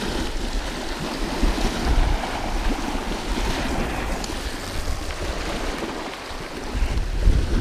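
Wind buffeting the microphone in uneven low rumbles over the steady wash of small waves lapping at a lake shore.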